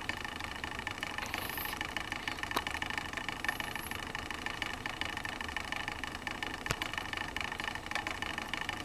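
A newborn baby's hiccups: a few faint sharp clicks several seconds apart, over a steady mechanical hum.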